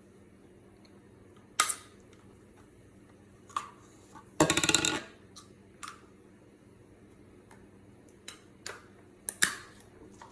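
Handling of an aluminium cider can and a plastic can-shotgunning tool: scattered sharp clicks and taps, with a dense rattling burst lasting under a second about halfway through.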